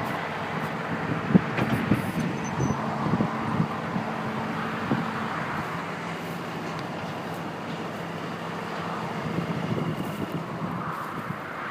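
Komatsu WB140-2 backhoe's diesel engine running steadily, with a few sharp knocks about one to two seconds in.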